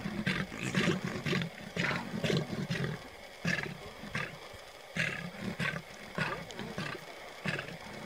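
Male lion growling low at a kill, with spotted hyenas crowding him and giving many short high-pitched cries.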